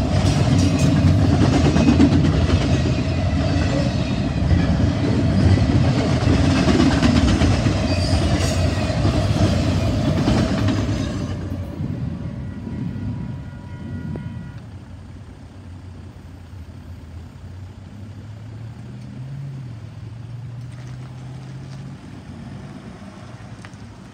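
A double-stack intermodal container freight train rolls past with a loud rumble and clatter of wheels and cars. The last car goes by about eleven seconds in and the sound fades away, leaving a quiet low engine hum from road traffic waiting at the crossing.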